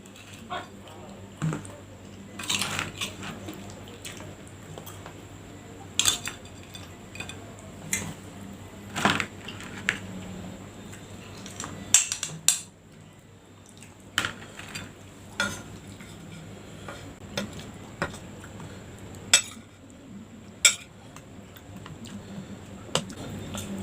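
A small spoon clinking and scraping against a plate while eating fried rice, in irregular sharp clicks a second or two apart.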